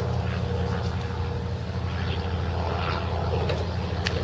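A steady low engine drone, with a few faint light clicks toward the end.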